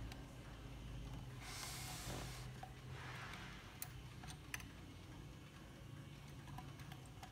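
A brass chiming-clock movement handled by hand: a brief rustle, then a few faint, irregular small metallic clicks, over a low hum.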